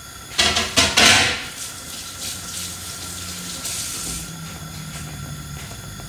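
Tap water splashing into a sink, loudest about half a second in and easing off after about four seconds, over a low sizzle of chicken pieces sealing in a frying pan.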